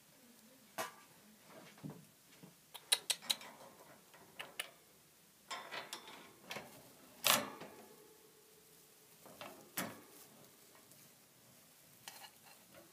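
Scattered light clicks and short rustles of a hamster moving about in wood-shaving bedding. There is a quick run of three clicks about three seconds in, and a sharper knock near the middle.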